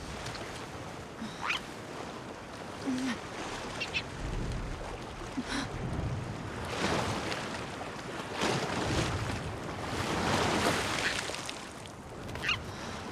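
Seagull giving several short calls over the wash of ocean surf, which swells and falls.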